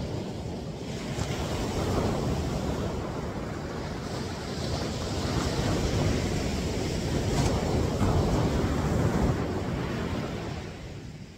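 Ocean surf breaking and washing up the beach, swelling and easing, with wind buffeting the microphone; it fades near the end.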